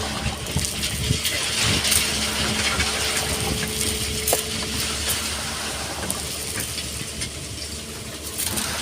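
Excavator working: its diesel engine and hydraulics running with a steady hum, under gritty scraping and scattered clicks of sand and stones being moved.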